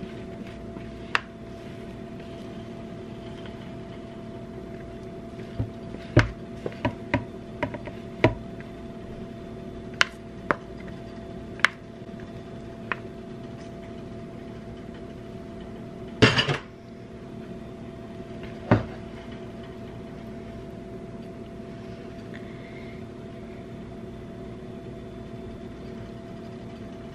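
Scraping banana bread batter from a mixing bowl into a metal loaf pan and spreading it, with scattered knocks and clicks of the utensils against the bowl and pan. The loudest knock comes about two-thirds of the way through. A steady low hum runs underneath.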